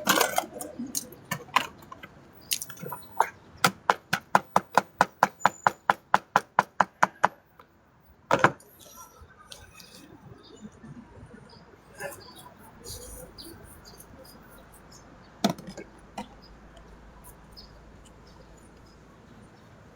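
A rapid, even run of sharp knocks, about four a second, lasting several seconds, then a few single knocks spaced well apart.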